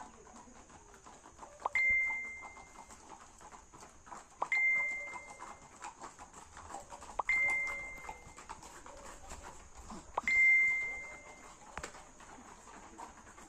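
A small bell ringing four times at even intervals of nearly three seconds. Each time it is a sharp strike followed by one clear high note that fades over about a second.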